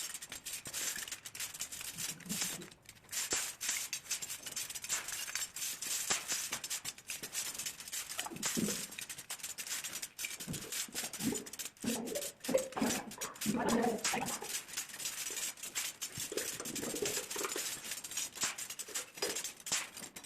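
Electric arc crackling and sizzling steadily on iron, a continuous fizzing crackle of rapid pops.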